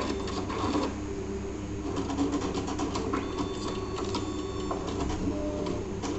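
Zebra ZXP Series 3 card printer going through its power-on initialization, checking the newly installed ribbon: its mechanism runs with clusters of clicks and ticks, and a thin whine rises for a second or two about three seconds in.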